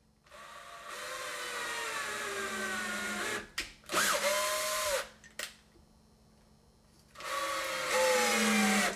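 Power drill driving screws into a wooden door: three runs of the motor, the first and last dropping in pitch as the screw draws tight, with two short trigger blips between them.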